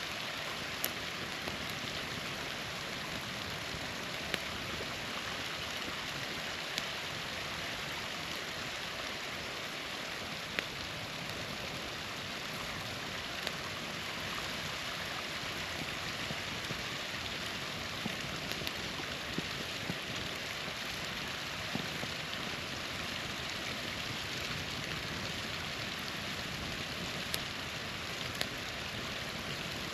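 Small waterfall's steady rush with a campfire crackling over it: sharp, irregular pops every second or two.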